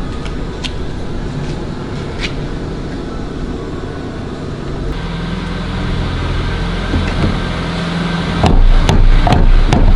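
A steady low rumble, then from about 8.5 s a series of sharp knocks: a plastic hammer tapping a bow-thruster part down into its seat until it sits flush.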